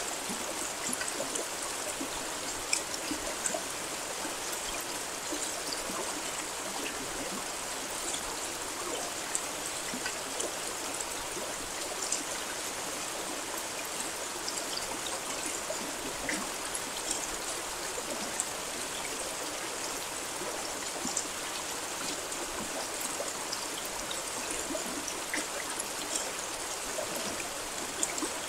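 Steady rain falling, an even hiss with many small, separate drop hits scattered through it.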